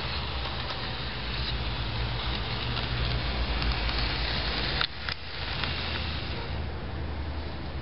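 Model electric trainset running along model railway track toward the microphone. It gives a steady hum and rushing noise with faint scattered clicks, and the sound dips briefly about five seconds in.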